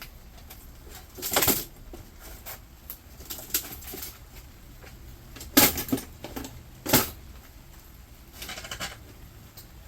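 Scattered clanks, knocks and clinks of metal and plastic parts as a Kenmore Elite washing machine is being taken apart for scrap. The loudest knocks come about a second and a half, five and a half and seven seconds in, with a short rattling scrape near the end.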